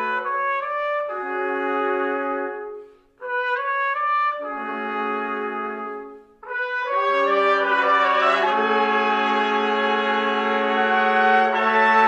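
Trumpet ensemble of six playing slow, sustained chords. The sound breaks off briefly about three and six seconds in, then settles on a long held chord.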